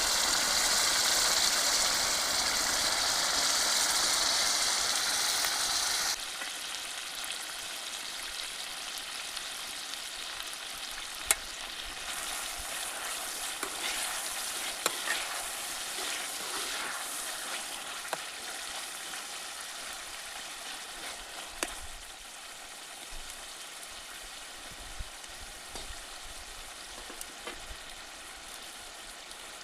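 Chicken frying in hot oil, a loud even sizzle that drops abruptly about six seconds in to a quieter sizzle with scattered sharp pops, fading slowly.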